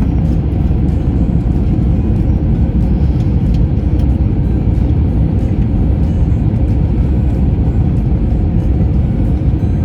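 Steady, loud low rumble of an airliner in flight, heard inside the passenger cabin: jet engine and airflow noise during the descent.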